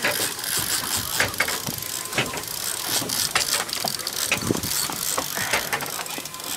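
Shimano Saragosa spinning reel working under heavy load from a large hooked fish, giving irregular ratcheting clicks of its drag and gears, several a second, over a steady hiss of wind and water.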